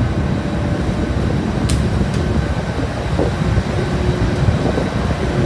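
Steady low rumble of a car ferry under way, with a faint steady whine above it and a single sharp click a little under two seconds in.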